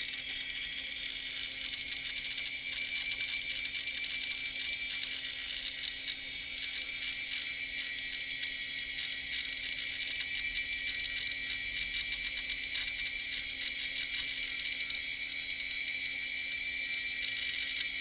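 Quantum ProDrive LPS 230 MB hard drive seeking with a rapid, continuous clatter of fine ticks over a steady high whine, busy reading while the computer boots.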